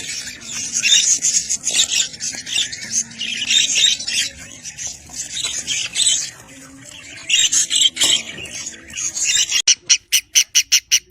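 Budgerigars chattering and squawking, with a fast, even run of sharp repeated chirps near the end.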